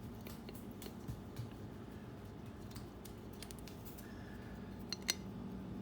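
Scattered light clicks and taps of small metal bolts and tools being handled while refitting parts on a small engine, with two sharper clicks about five seconds in. A faint steady hum runs underneath.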